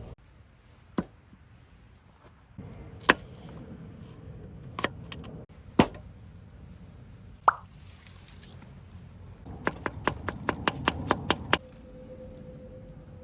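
Short, sharp plops, each dropping quickly in pitch: single ones a second or two apart, then a quick run of about ten in under two seconds.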